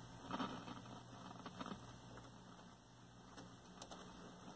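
Faint, steady low mains hum from a 1973 Admiral hybrid colour TV just switched on through a dim bulb tester, with a few soft ticks.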